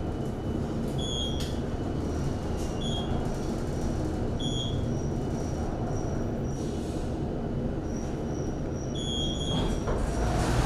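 San Diego Trolley light-rail car running, heard from inside: a steady low rumble from the car on the rails. Short high beeps repeat about every second and a half in the first half and once more near the end, and a thin high squeal comes and goes in the middle.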